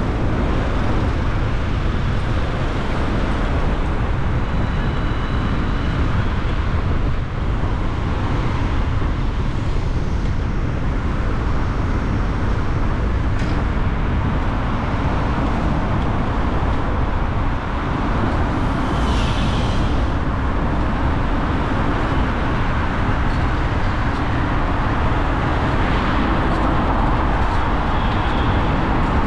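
Steady road and traffic noise from a car driving through city streets, a constant low rumble with a brief hiss a little past the middle.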